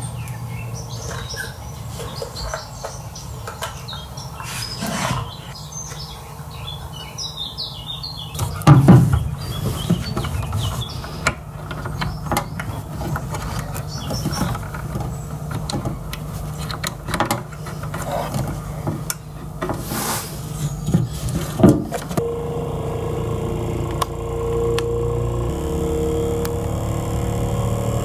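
Small clicks and knocks of hands working plastic spring-clip speaker terminals and plugging in wires. About three-quarters of the way through, a steady tone with overtones starts from a homemade tin-can subwoofer being driven with a test signal of around 20 Hz.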